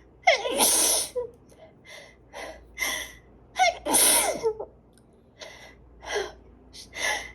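A person sneezing hard twice, about three seconds apart, each sneeze starting with a drawn-in 'ah' that slides down in pitch before the burst. Quieter sniffs and breaths come in between. The sneezing fits are ones they put down to allergies.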